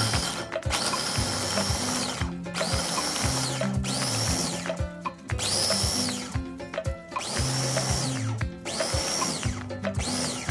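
Electric mini chopper with a glass bowl chopping nuts in several short pulses, its motor whine rising at each start and dropping away as it stops.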